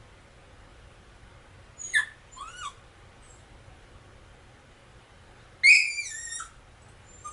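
A dog yelping in high, sharp cries that fall in pitch. One short yelp comes about two seconds in, with two fainter ones just after it. A few seconds later comes a louder, longer yelp that drops in pitch.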